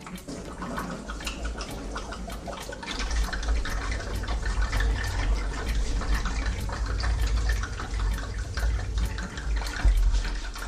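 Engine coolant pouring and splashing out of a disconnected lower radiator hose on an MGB. The flow swells about three seconds in and keeps running steadily.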